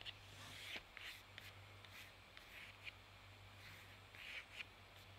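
Faint scratching of a drawing pen on watercolour paper: a string of short, quick strokes with small ticks between them.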